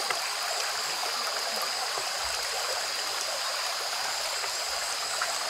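Shallow brook trickling and rippling over leaves, twigs and stones: a steady babbling of running water. A thin, steady high tone sits above it.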